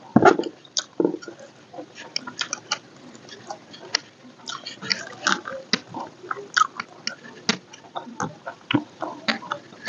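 Close-up eating sounds: a person chewing and biting food with wet, irregular mouth clicks, from a mukbang meal of rice with salted fish, fried tempe gembus and vegetables.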